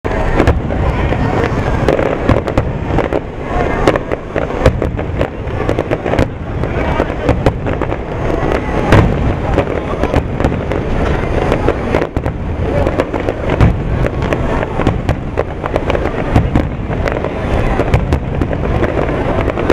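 Fireworks finale barrage: many aerial shells bursting in quick succession, a dense, unbroken run of booms and crackles.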